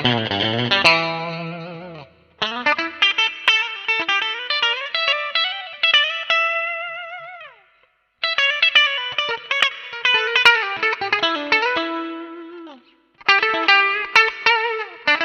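Fender Stratocaster electric guitar played through a MOOER GE200 multi-effects unit on its 'SWEETY' preset: melodic lead phrases with vibrato, each ending in a downward slide and a short pause, about three times.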